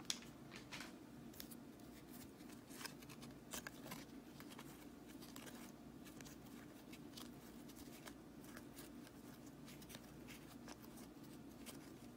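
Faint soft clicks and slides of 2020-21 Upper Deck hockey trading cards being flipped one by one from the top of a stack into the other hand, over a low steady room hum.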